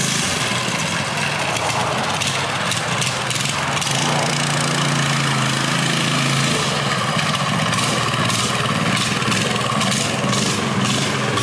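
Coleman CT200U mini bike's small 196cc single-cylinder four-stroke engine running steadily as the bike is ridden, its pitch holding with a slight change about six and a half seconds in.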